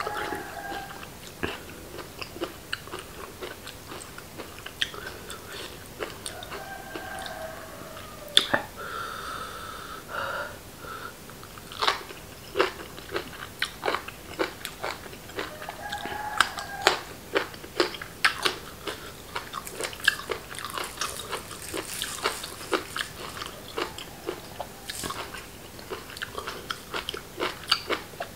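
Close-miked chewing and biting of raw beef liver: a steady run of many sharp, wet clicks, with the liver called crunchy. A few times, short pitched calls sound faintly behind it, roosters crowing in the pre-dawn dark.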